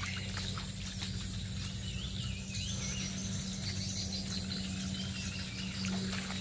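Birds chirping and insects calling, over a steady low hum.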